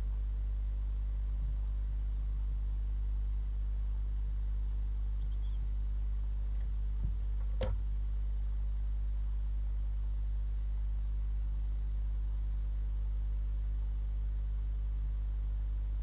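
Steady low hum from a nest-box webcam's audio feed, with one short click a little before halfway.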